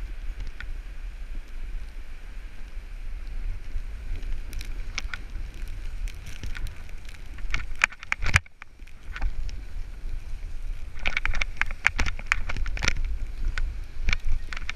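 Wind rushing over the microphone of a wearable camera moving down a ski run, a steady low rumble with crisp scraping and crackling of edges over the snow in clusters, thickest in the last few seconds. One sharp knock comes a little past eight seconds in.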